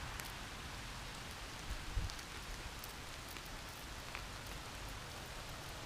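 Steady rain falling, an even hiss with scattered faint drop ticks. A brief soft knock about two seconds in.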